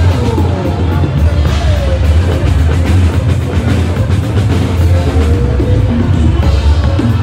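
Loud music with a heavy bass and drums.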